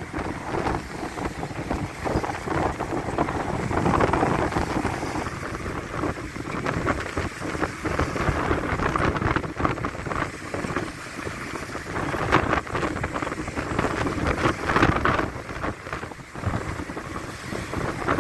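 Storm wind gusting hard against the microphone: a loud, uneven rush that surges and drops.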